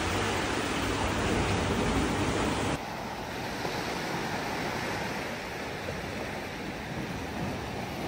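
A steady rushing noise with no pitch to it. The noise drops suddenly in level about three seconds in.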